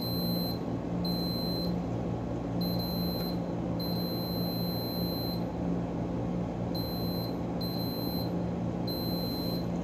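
Digital multimeter's continuity beeper giving a steady high tone in broken beeps of half a second to a second and a half as the probes touch the board, a sign of a short circuit between the probed points. A steady low hum runs underneath.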